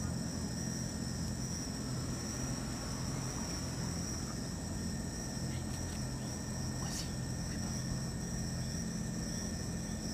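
Steady high-pitched chorus of night insects, over a constant low hum.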